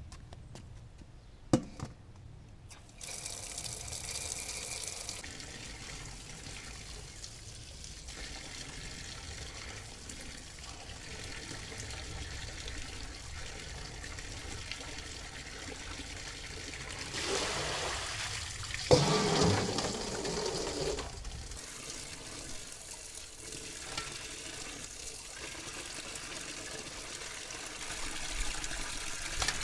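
Water running from an outdoor tap into a metal bowl while sliced eggplant is rinsed by hand, the splashing swelling for a few seconds past the middle. A sharp click comes just before the water starts, and a sharp knock comes during the louder splashing.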